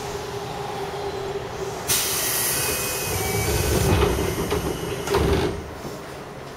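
Pneumatic sliding doors of a JR West 205 series commuter car working, over the train's steady hum: a sudden hiss of air about two seconds in, then a low rumble of the door panels moving and a heavy thud near the end as they reach the end of their travel.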